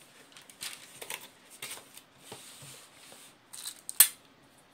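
Cardboard box inserts and plastic bags being handled during unpacking: a few short rustles, then one sharp knock near the end.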